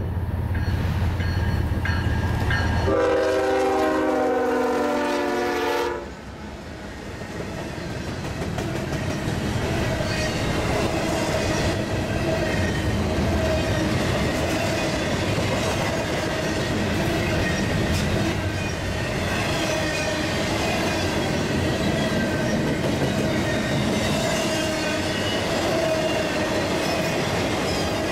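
Diesel freight locomotives approaching with engines running, then sounding a long air-horn blast of several notes together about three seconds in that cuts off sharply about three seconds later. The lead units pass and a double-stack intermodal train rolls by with steady wheel-on-rail clatter and a ringing note under it.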